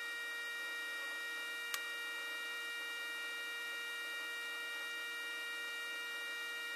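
Steady electrical hum with several high whining tones over a faint hiss, broken once by a single sharp click a little under two seconds in.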